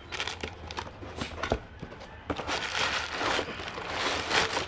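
Packaging being handled as a product box is opened: crinkling and rustling, with small clicks and knocks, growing busier about halfway through.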